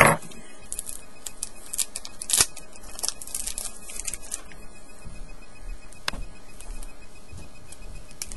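Trading cards being handled and sorted through in the hands: a run of short rustles, slides and clicks, busiest over the first four seconds or so and sparser after, with the loudest snaps at the very start and about two and a half seconds in.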